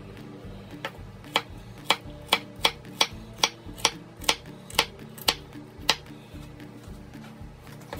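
Chef's knife chopping carrots on a wooden butcher-block cutting board: about a dozen sharp knocks at two to three a second, starting about a second in and stopping around six seconds in.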